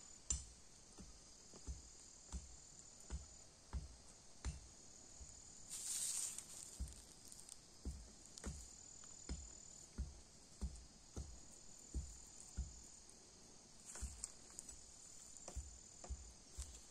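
Insects chirring steadily at a high pitch, with soft low thumps about one to two a second and a brief rustle about six seconds in.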